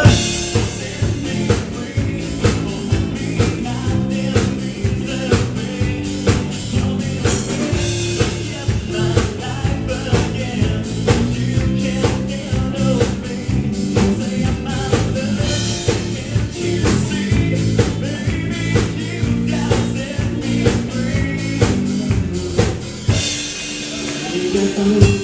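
Rock band playing live: electric guitars, bass and a drum kit keeping a steady beat, with a singer. Near the end the drums stop and held chords ring on.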